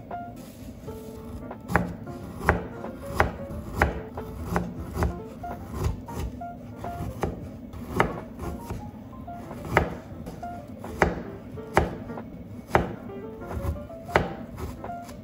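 Kitchen knife cutting garlic chives and then thin slices of pork on a plastic cutting board, the blade knocking on the board in sharp, irregular strokes.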